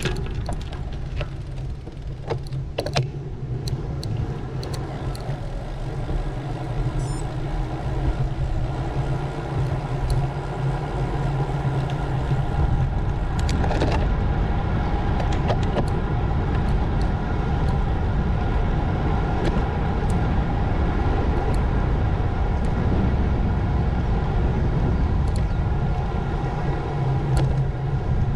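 Road bike being ridden: a steady rumble of road, tyres and wind that builds over the first dozen seconds and then holds, with scattered sharp clicks, most of them in the first few seconds.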